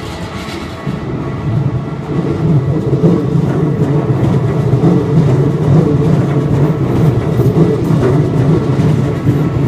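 Keikyu electric train passing over the level crossing: a heavy rumble builds about two seconds in and stays loud. The crossing's warning bells ring steadily underneath.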